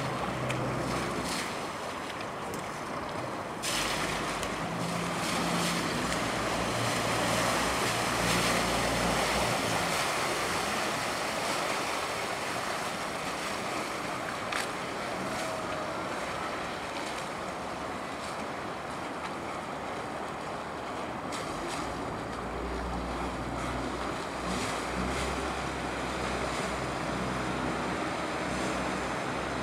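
River water sloshing and lapping, with a steady rush and a low rumble underneath that swells and fades.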